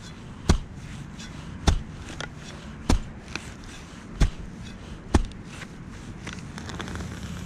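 Digging shovel driven repeatedly into turf, five dull thuds a little over a second apart, cutting around a plug of sod.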